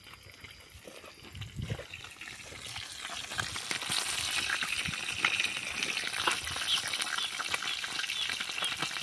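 Small tilapia frying in oil in a frying pan: a sizzle with crackling that grows louder a few seconds in and then holds steady.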